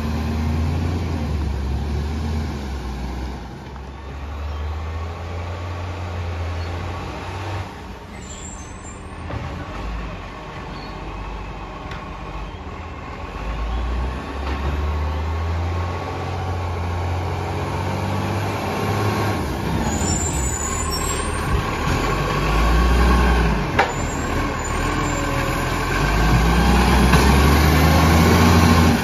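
Diesel engine of an Iveco Acco side-loading garbage truck running as it drives down the street, its low drone swelling and fading and getting loudest near the end as the truck pulls past close by. A few short air-brake hisses cut in along the way.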